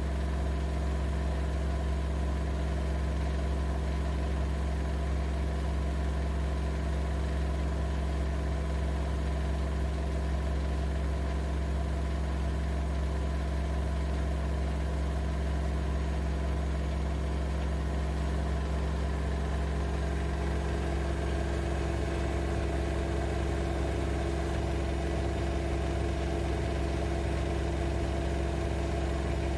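AEG Lavamat L6FB67490 front-loading washing machine running, its inverter motor and drum giving a steady low hum with several steady tones. A higher whine joins in about two-thirds of the way through.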